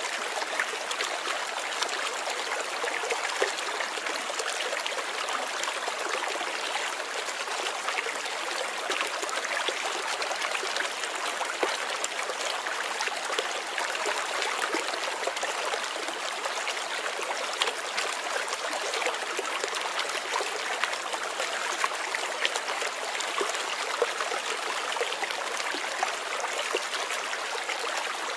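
Fast-flowing river water rushing and splashing: a steady wash of water sound dotted with many small splashes.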